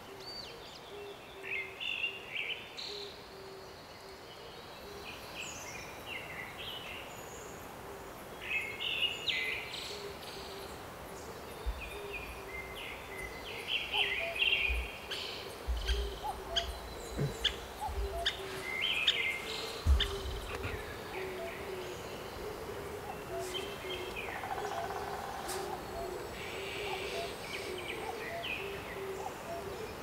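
Several wild birds calling and singing, with short chirping phrases scattered throughout and a low note repeated steadily underneath. A few dull low thumps come in the middle.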